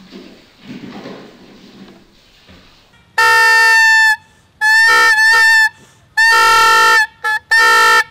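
Howling Horn toy whistle, its stretched aluminium-foil membrane vibrating over a central tube, blown in loud steady-pitched honks. About five blasts begin some three seconds in: the second wavers in pitch, one near the end is very short, and the last is still sounding at the close.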